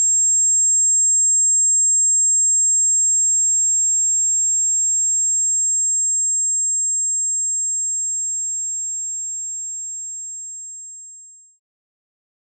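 A single steady high-pitched pure tone, a film ear-ringing effect after a knockout blow, held for several seconds, then slowly fading and gone about a second before the end.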